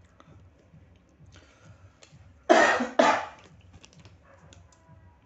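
A person coughing twice in quick succession, about half a second apart, a little past the middle.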